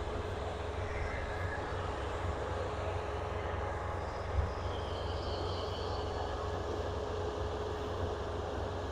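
Kubota rice combine harvester running steadily: a low engine hum with a thin steady whine over it and the noise of the machinery, and one brief knock about four seconds in.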